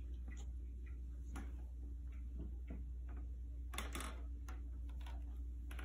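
A cat playing with a feather toy on a rug: scattered light clicks and scuffs from its paws, claws and the toy, with a short cluster of louder rustling about four seconds in, over a steady low hum.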